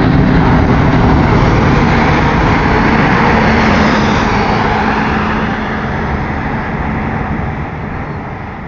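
Fighter jet's engine noise, a loud, broad rushing roar that fades steadily over the last few seconds as the jet passes and moves away.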